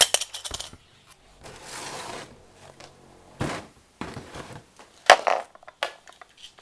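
Handling noises: scattered clicks, knocks and a short rustle as plastic Beyblade parts and the camera are picked up and moved between rounds.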